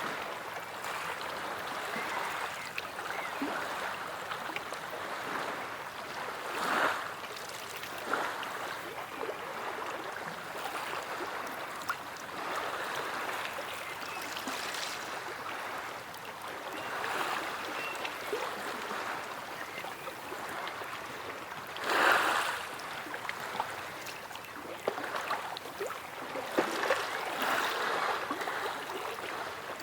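Sea waves washing and splashing on a shore: a continuous wash of water that swells with incoming waves about 7 seconds in, again near 17 seconds, most loudly around 22 seconds, and once more near the end, with small splashes in between.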